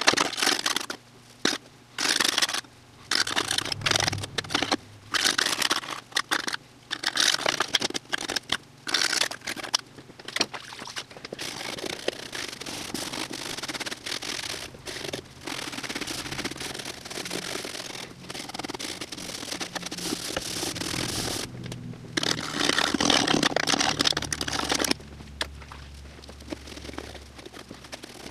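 Abrasive scouring pad scrubbing the bare metal of a snowmobile tunnel and chassis clean: rough scraping in short strokes with pauses at first, then near-continuous scrubbing, loudest for a few seconds near the end.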